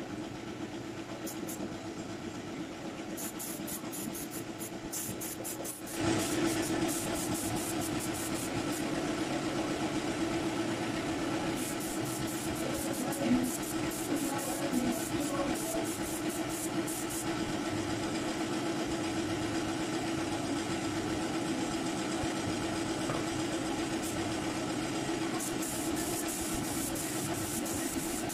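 An air compressor motor runs steadily with a constant hum, getting louder about six seconds in, as it feeds a spray gun. Short spells of rapid hissing air bursts come from the spray gun several times.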